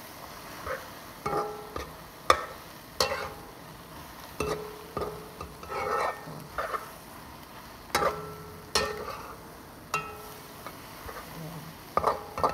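A metal cooking utensil scraping and knocking against a wok while egg and tomato are stirred, over the sizzle of frying. The knocks come irregularly, many of them leaving a brief ringing tone from the pan.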